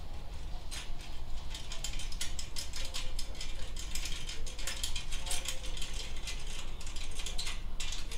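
Hand ratchet wrench clicking in quick runs of strokes as a muffler mounting bolt is worked loose.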